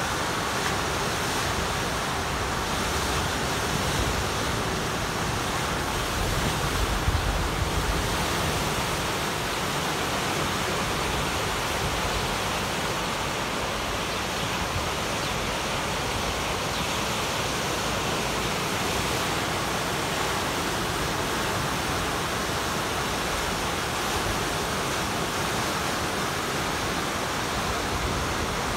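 Fast floodwater of the swollen Arkansas River rushing and churning through standing waves and around concrete bridge piers, a steady rushing noise with a brief low rumble about seven seconds in.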